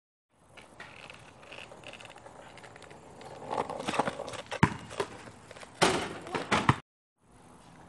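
Outdoor background noise with a few sharp knocks and thuds, the loudest about four and a half and six seconds in, followed by a short run of clicks before the sound cuts off abruptly.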